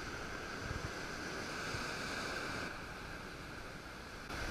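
Rough ocean surf washing and breaking against a rock wall, a steady rushing noise.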